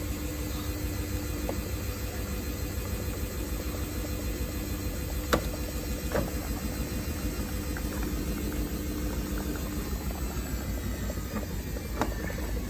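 Samsung WF1700WRW front-loading washing machine running a wash programme: a steady motor hum and drum rumble, with a few sharp knocks, about five, six and twelve seconds in.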